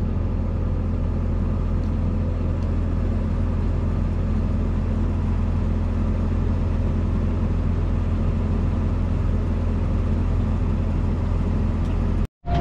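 Tractor engine running steadily, heard from inside the cab as a constant low drone. The sound cuts out briefly near the end.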